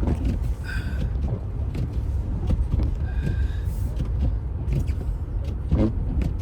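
Steady low rumble of an SUV driving slowly over a snow-covered road, heard from inside the cabin, with a few faint clicks.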